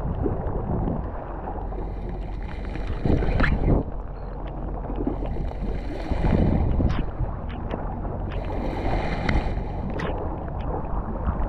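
Wind buffeting the microphone over lapping bay water, with a spinning reel cranked in three short spells while a small fish is reeled in.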